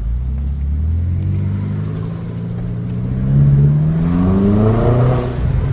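BMW X5M's twin-turbo V8 accelerating hard, its engine note rising steadily in pitch for about five seconds and then dropping near the end.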